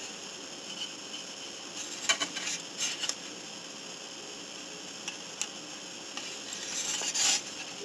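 Faint scratchy handling noises from dry brushing a plastic model kit with a small paintbrush: a few short scrapes, then a longer rustle near the end, over a steady background hiss.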